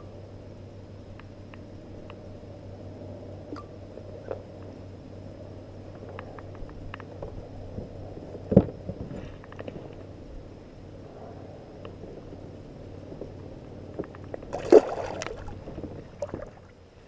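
Kayak on the water: light sloshing and gurgling against the hull, with small clicks and knocks, one sharp knock about halfway through and a brief clatter near the end.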